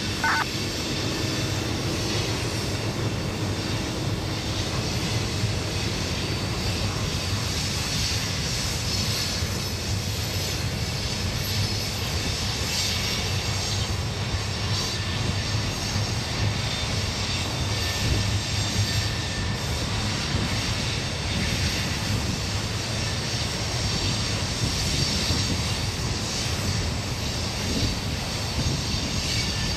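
Long freight train's cars rolling steadily along curving track, a continuous rumble and clatter of wheels on rail.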